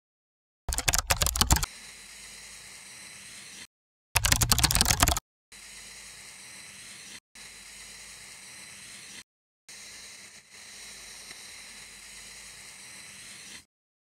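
Pencil-drawing sound effect: two short bursts of fast scratchy clicking, then a steady scratching hiss that starts and stops several times with brief silent breaks as the lines are drawn.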